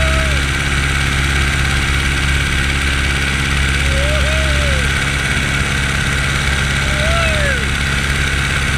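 Biplane engine and propeller running steadily in flight, drowned in a loud rush of wind on the microphone. Three short rising-and-falling tones sound near the start, about halfway and near the end.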